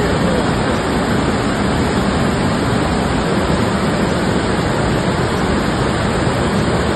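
Muddy river in sudden flood, torrent rushing over boulders in a steady, loud, unbroken rush of water.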